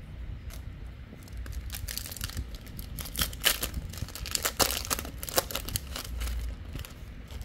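Plastic booster pack wrapper crinkling and tearing as a trading-card pack is opened. It is a dense run of sharp crackles, loudest in the middle of the stretch.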